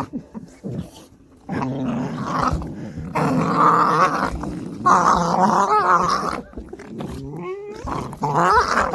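Dogs play-growling together, starting about a second and a half in and running on in long rough growls, with a few high, rising-and-falling whines near the end: rough-and-tumble play, not a fight.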